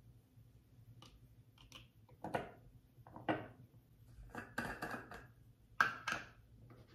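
Small handling sounds of an SK-II cream jar: a few short clicks and knocks and a brief scraping as its screw lid is twisted off. The loudest knock comes near the end, as the lid is set down on the counter.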